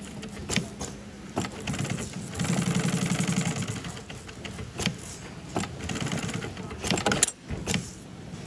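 Sewing machine stitching a nylon strap in a short run of about a second and a half, starting a couple of seconds in, with scattered clicks and knocks from the machine and the handling of the strap around it.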